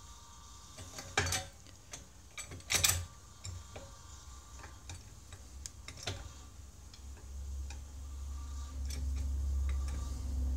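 Monitor-top refrigerator raised on a trolley jack: scattered clicks and knocks, with two louder ones a little over a second and near three seconds in, then a low hum that swells from about seven seconds in. The cabinet is tilted to stop a rattle while SO2 refrigerant is still being driven out of the compressor sump.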